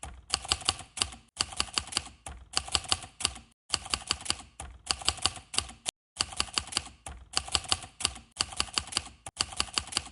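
Rapid typing clicks, like keys on a keyboard, in runs of about a second with short gaps of dead silence between them.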